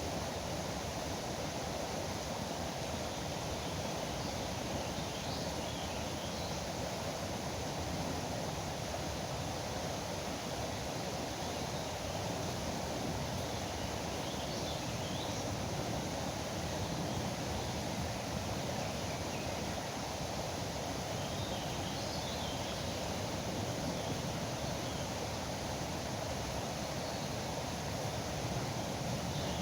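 River water rushing steadily, with a few faint, short bird chirps now and then.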